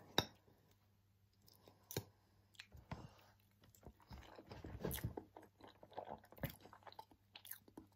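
Faint chewing of a mouthful of stew and dumpling, with scattered soft clicks from the mouth and the cutlery.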